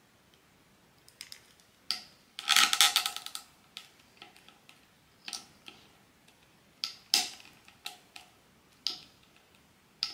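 Hands handling a blind-box figurine and its hard plastic packaging: a string of irregular sharp clicks and taps, with a dense burst of rapid rattling about two and a half seconds in.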